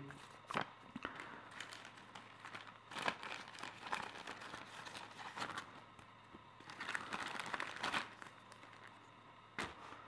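Sheets of paper rustling and crinkling as they are handled and laid down by hand, in short scattered bursts with a few louder crinkles.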